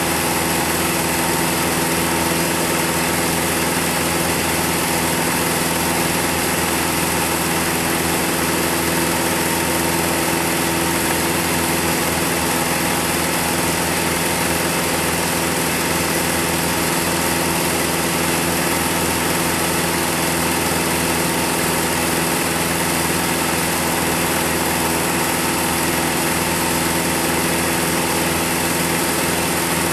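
Film projector running: a steady mechanical whir and hum that does not change.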